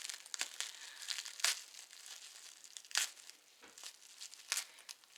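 Wrapping crinkling and rustling as it is pulled away from a doll's face, with three louder crisp rustles about a second and a half apart.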